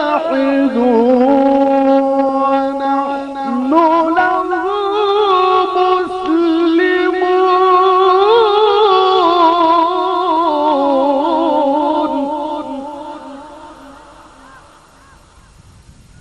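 A reciter's voice holding a long, ornamented melodic phrase of Quran recitation, drawn out with no clear words and wavering in pitch. It steps up to a higher note about four seconds in, then fades away over the last few seconds.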